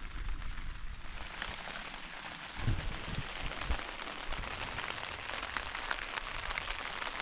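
Rain pattering on a tent's flysheet, heard from inside the tent: a dense, steady patter of drops that thickens about a second in. A single soft low bump comes a little under three seconds in.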